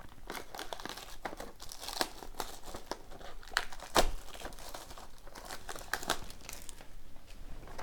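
Packaging crinkling and tearing as a hockey card hobby box is unwrapped and opened, with many small crackling clicks and a sharper snap about four seconds in.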